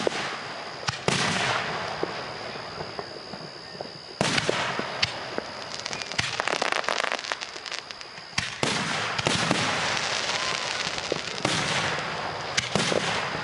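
Aerial fireworks going off: a string of sharp booms, each trailing off, with a dense spell of crackling shells in the middle.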